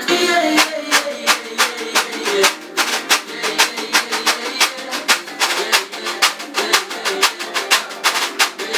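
Reco-reco scraper played in a steady rhythm of sharp scrapes, several a second, over pagode music.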